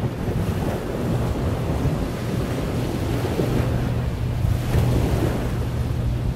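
Wind buffeting the microphone over the wash of waves as a high-speed catamaran ferry passes close by, its engines a steady low drone that comes through more clearly from about halfway through.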